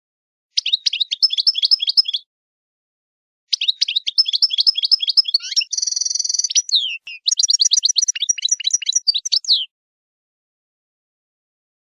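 A small songbird singing: three phrases of rapid high trills, with a held whistled note about six seconds in and dead silence between phrases.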